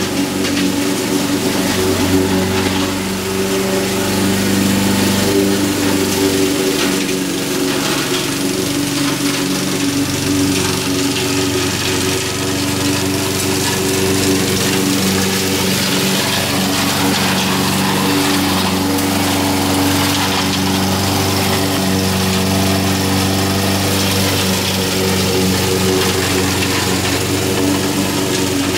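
Honda HR194 push mower's four-stroke engine running steadily while it cuts grass very low.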